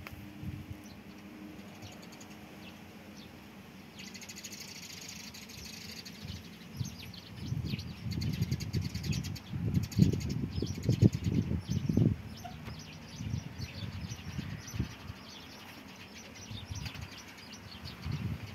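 Small birds chirping in the background, with a stretch of dull low thumps and rustling from about seven to twelve seconds in.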